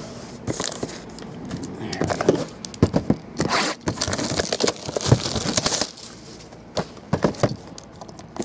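Foil trading-card pack wrappers crinkling and rustling as they are handled, with irregular light clicks and scrapes of the packs and cardboard box against the table. The crinkling is busiest in the middle.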